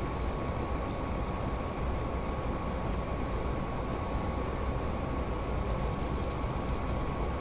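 Steady background noise, strongest in the low range, with a faint steady high tone running through it and no distinct events.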